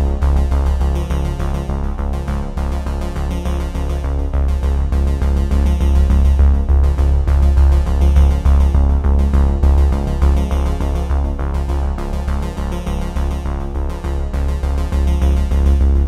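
Background music with a steady beat and a heavy bass line.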